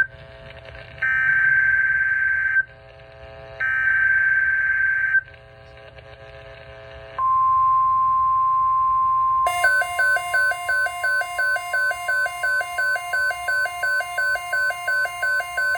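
NOAA Weather Radio EAS alert opening: screechy digital SAME header data bursts, then the steady single alert tone from about seven seconds in. About two and a half seconds later, a loud pulsing two-pitch beep alarm, about three beats a second, starts over that tone.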